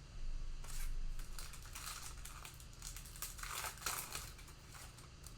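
Plastic trading-card pack wrapper crinkling as it is handled and opened: a run of irregular crinkles and rustles, busiest in the middle.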